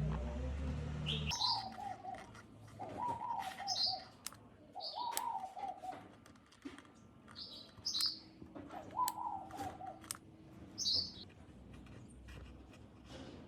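Birds calling repeatedly, short falling calls with brief high chirps every second or two, over scattered light clicks; a low hum stops about a second in.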